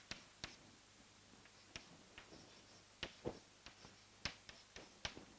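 Chalk tapping and scratching on a blackboard as an equation is written: a faint, irregular string of short clicks, about a dozen in all.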